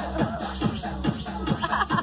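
Music with a fast, steady beat over a deep, steady bass.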